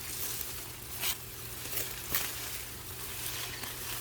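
Rustling and crackling of corn leaves and stalks as people push through a corn patch, with a few sharper crackles about a second and two seconds in.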